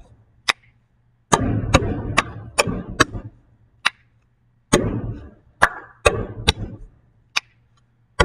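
Hands slapping and tapping a wooden desktop, with claps and finger snaps, in a repeating hand-rhythm pattern played twice. Dull slaps on the desk alternate with sharp snaps and claps, over a faint low hum.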